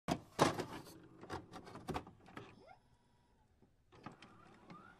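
Glitch-style transition sound effects: starting abruptly out of silence, a run of sharp clicks and crackles, loudest in the first second, with a few short pitch sweeps, one rising near the end.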